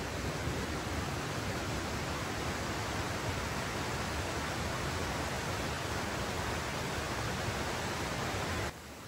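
Steady rush of a spring-fed stream tumbling below a grist mill's overshot water wheel. It turns noticeably quieter shortly before the end.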